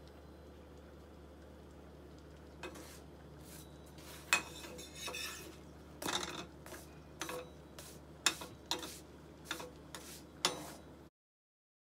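A spatula scraping and knocking against a frying pan while turning flatbread: a dozen or so short scrapes and taps that start a few seconds in. The sound cuts off abruptly near the end.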